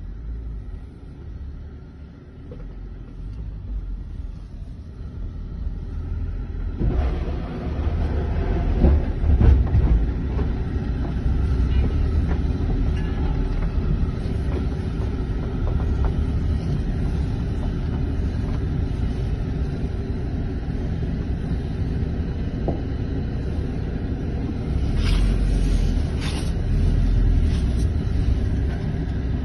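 Low rumble of a car driving, heard from inside the cabin, growing louder about seven seconds in, with a few knocks along the way.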